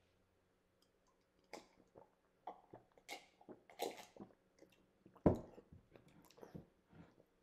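Faint sipping and swallowing from a mug, with small wet mouth and lip clicks scattered through, and one sharp knock a little past the middle.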